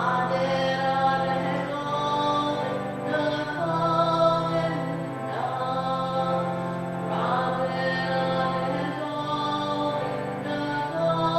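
Chant sung over a sustained low instrumental drone, the chord underneath shifting every couple of seconds.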